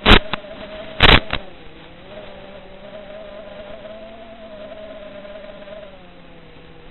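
Brushless motors of a ZMR 250 FPV racing quadcopter buzzing in flight, the pitch drifting up and down as the throttle changes. Two short, very loud bursts of hiss come near the start, about a second apart.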